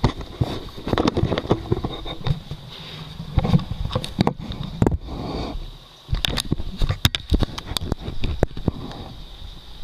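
Kitchen handling noise: the camera rubbing against a shirt, with irregular knocks and clicks. In the second half come sharp clinks of a metal fork against a ceramic bowl as eggs are beaten.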